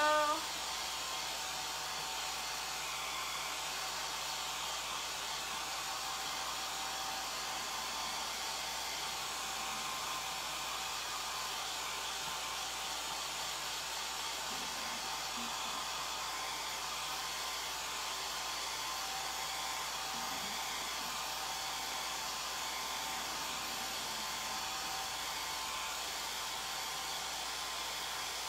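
Handheld hair dryer running steadily, blowing on wet chalk paste through a silk-screen transfer to dry it. A faint steady whine rides over the even rush of air.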